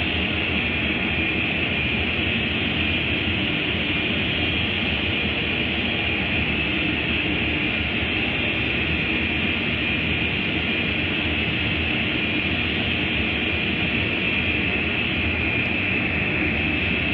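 Automatic car wash equipment running: a loud, steady rush of noise that holds without a break.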